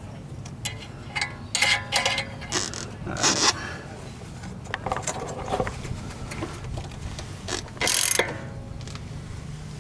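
Irregular metallic clicks and clanks of hands and tools working the steel sway bar quick-disconnect link and its pin, with a steady low hum underneath.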